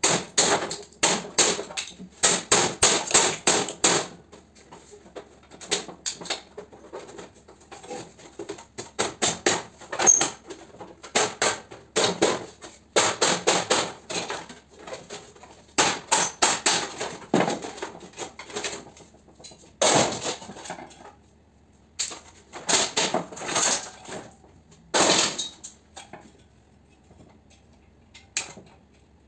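Hammer blows on the sheet-metal casing of a fan coil unit, in runs of quick strikes broken by short pauses, as the unit is knocked apart for scrap.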